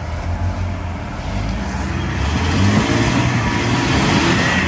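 Off-road rig's engine running under load while climbing a trail obstacle, growing louder from about two seconds in, with a rising hiss over the engine drone.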